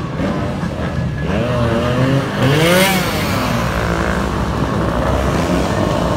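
Stunt motorcycle engine revving, its pitch sweeping up and down, with a short hissing burst about halfway through that is the loudest moment.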